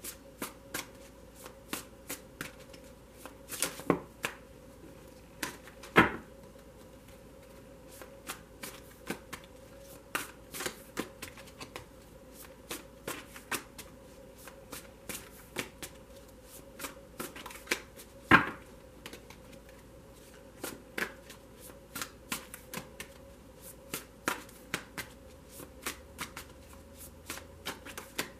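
Tarot deck being shuffled by hand: a continual run of irregular card clicks and riffling snaps, with a few much louder slaps of the cards, the loudest about six seconds in and again about eighteen seconds in.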